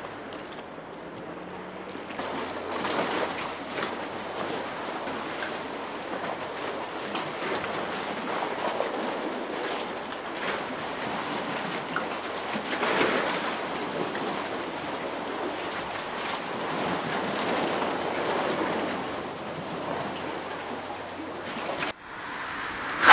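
Storm-surge waves washing and slapping against a harbour quay, with gusting wind buffeting the microphone; the noise swells and eases in surges. Near the end it breaks off abruptly into a quieter scene.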